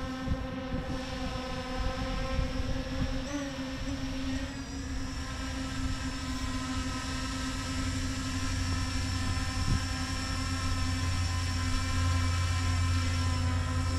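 Small quadcopter drone hovering close by, its propellers giving a steady buzzing whine, with a brief wobble in pitch a few seconds in. A low rumble runs underneath.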